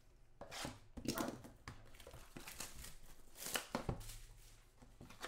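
Hands opening a box of trading cards: its clear plastic wrap crinkles and tears in a series of short rustles, with a few light taps on the cardboard.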